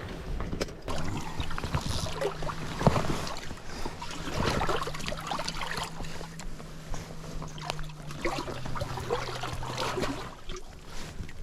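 Water splashing and sloshing against a small inflatable fishing raft, with irregular knocks and rustles of handling throughout.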